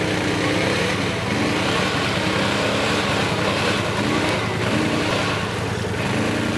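Arctic Cat side-by-side UTV's engine revving up and down several times while the machine is stuck in deep mud and trying to pull itself out.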